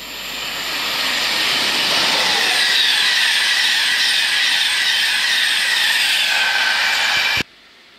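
InterCity 225 express train passing at speed: a rushing noise of wheels on rail that builds over the first two seconds, with a faint high whine sliding slightly down in pitch. No horn is sounded, and the sound cuts off suddenly near the end.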